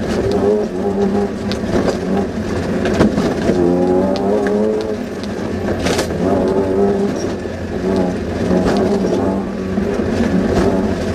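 Off-road rally Suzuki Vitara's engine heard from inside the cabin, revving up and dropping back again and again as it is driven hard over rough ground, with sharp knocks from the car body and suspension.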